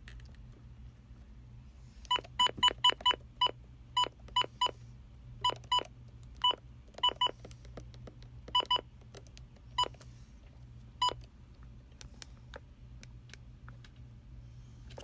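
Short electronic beeps at a single pitch, about eighteen in an uneven rhythm, some in quick runs, from about two seconds in until about eleven seconds in. A few faint clicks follow, over a steady low electrical hum.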